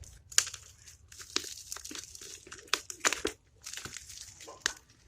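Plastic packaging crinkling and tearing as a parcel is unwrapped by hand, in irregular sharp crackles and rustles.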